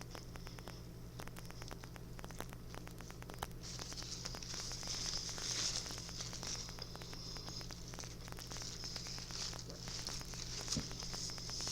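A person chewing food close to the microphone: many small wet clicks and crackles, busier for a few seconds in the middle and again near the end, over a steady low electrical hum.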